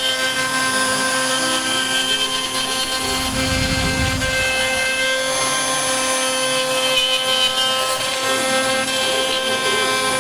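CNC router machining wood with a ball-nose cutter on a finishing pass: a steady whine from the spindle, with stepper motors whining and stepping in pitch as the axes move. A brief low rumble comes about four seconds in.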